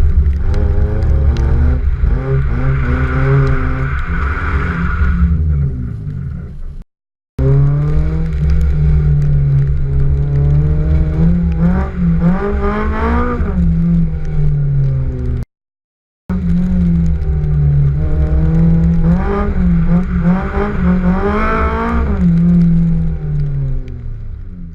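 Honda S2000's four-cylinder engine revving up and down while the car drifts, heard in three stretches broken by two short silences.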